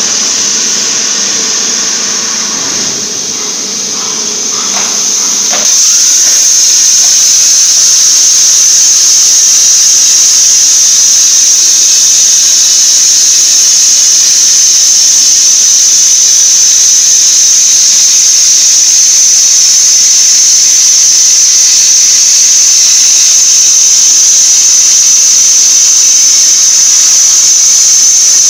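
CNC plasma cutting torch arcing through metal plate. About six seconds in it jumps from a quieter hiss to a loud, steady, high-pitched hissing screech that holds for the rest of the cut.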